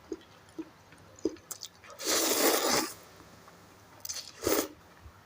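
Close-miked eating of instant noodles with pork balls and boiled egg: soft mouth clicks and chewing, with a louder noisy burst lasting about a second near the middle and a shorter one near the end.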